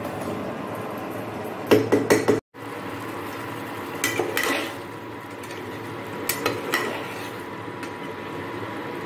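Metal spoon clinking and scraping against a pot: first a loud clatter as fried eggs and potatoes are tipped in from a bowl, then shorter runs of clinks a few seconds apart as the curry is stirred, over a steady background hiss. The sound drops out for a moment about two and a half seconds in.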